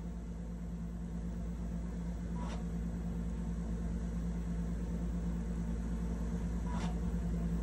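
Steady hum of a cartridge filmstrip projector running, with two faint short clicks, about two and a half seconds in and again near the end, as the picture advances.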